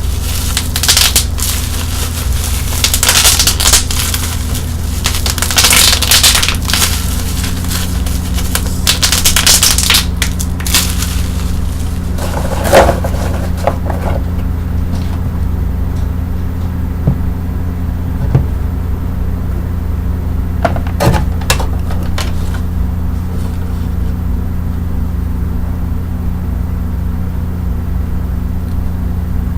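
Plastic bubble wrap being handled, crinkling and crackling in dense bursts for about the first half, then only a few scattered clicks. A steady low electric hum runs underneath throughout.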